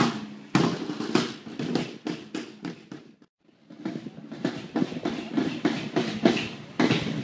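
Footsteps of a group of men marching over wet brick paving, many short steps a second, with a brief gap about three seconds in.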